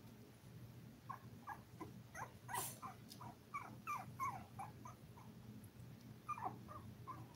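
Five-week-old toy poodle puppy whimpering: a run of short, high squeaks that mostly fall in pitch, several a second, with a brief knock about two and a half seconds in, over a low steady hum.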